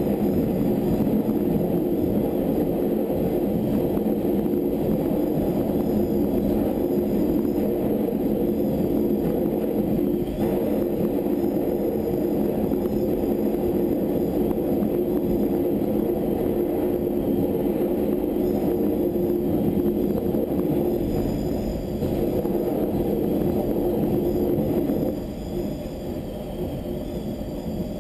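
Wellington suburban electric multiple unit running at speed, heard from the cab: a steady rumble with a humming drone, which drops somewhat quieter about three seconds before the end.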